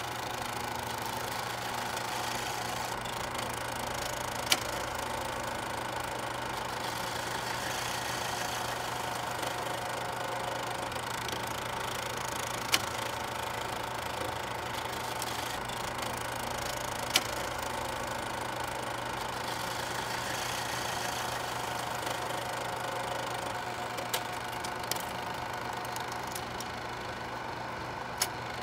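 8mm film projector running with a steady whir and hum, and a sharp single click every few seconds.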